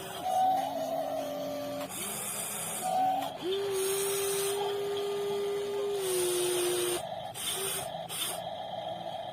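Electric motors of a WLtoys 16800 RC metal excavator whining as its functions are worked. The steady whine starts and stops every second or two, sweeping up in pitch as each run begins and shifting between pitches from one movement to the next.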